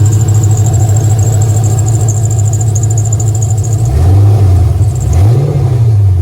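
LS1 V8 running through Kooks headers, idling steadily, then revved twice near the end, the pitch rising and falling each time.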